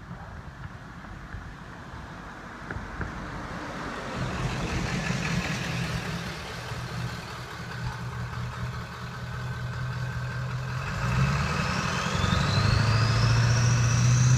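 A motor vehicle's engine hums and grows steadily louder as it comes closer. Near the end, a rising whine comes in on top.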